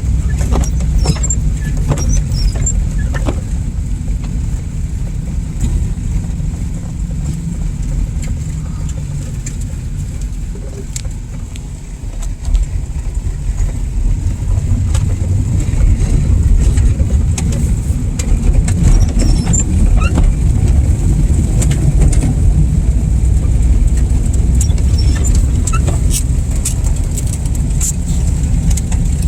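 Car driving through snow and slush: a steady low road and tyre rumble with scattered sharp ticks. The rumble eases off briefly near the middle, then comes back louder.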